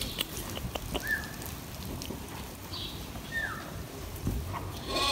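A pen of Ile de France sheep moving about on straw bedding: rustling with scattered light knocks, and two short high chirps.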